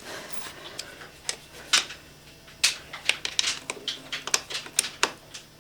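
Irregular light metallic clicks and taps of bolts and hand tools being handled while the clutch cover is bolted back on, over a faint steady low hum.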